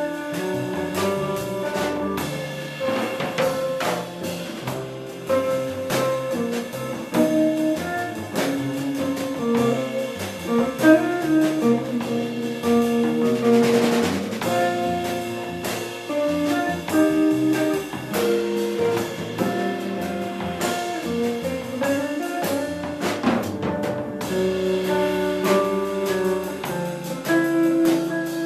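Black archtop electric guitar played through a combo amplifier: jazz chords and single-note lines, with sharp percussive knocks among the notes.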